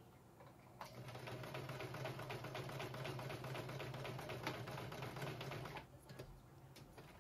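Home electric sewing machine stitching through a small cotton pocket with stiff interfacing inside. A fast run of needle clicks over a steady motor hum starts about a second in and stops about six seconds in.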